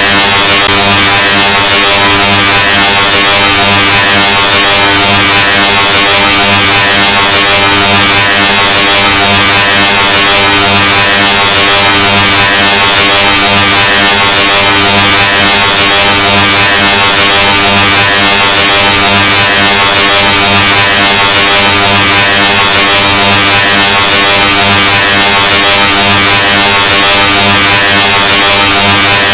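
A loud, deliberately distorted sound effect: a steady low buzzing drone, clipped to full volume, with a harsh hiss of distortion over it.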